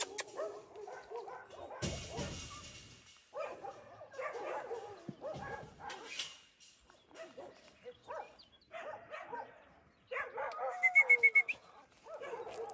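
Dogs whimpering and whining in short wavering bouts from inside a pet carrier, with a quick run of about five short, sharp high chirps about three-quarters of the way through.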